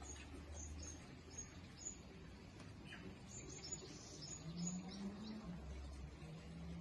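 Faint, high chirping of small birds, in short irregular runs, over a low steady hum.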